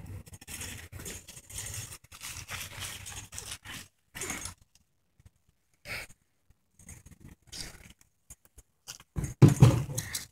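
Small BMX bicycle being ridden and pulled up into wheelies on pavement and grass: tyre and frame rattle in short bursts, with one loud low thump about nine seconds in.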